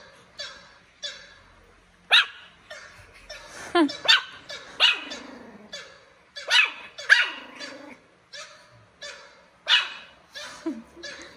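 Pomeranian barking repeatedly: short, sharp, high barks at irregular intervals of one to two seconds.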